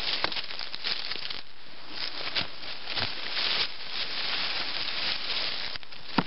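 Leaves, stems and leaf litter rustling and crackling as brush is cleared with a Woodsman's Pal machete/brush hook, with one sharp crack near the end.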